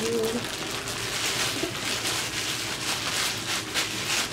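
Gold foil shower cap crinkling and rustling with many small crackles as it is pulled on over the hair.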